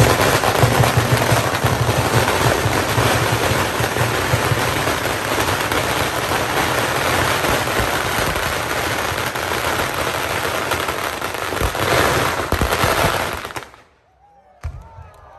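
A long string of firecrackers going off in a dense, rapid crackle that stops suddenly near the end.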